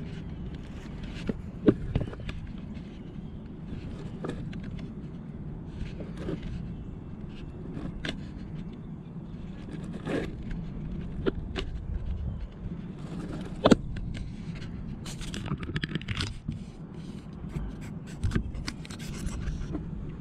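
Handling noise: irregular scraping, scratching and clicking as gear is handled, with two loudest sharp knocks about two seconds in and near fourteen seconds, over a steady low hum.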